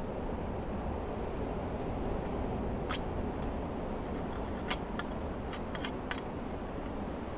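A scatter of about ten sharp, high clicks or snips, bunched about three to six seconds in, over a steady outdoor rush of wind and surf.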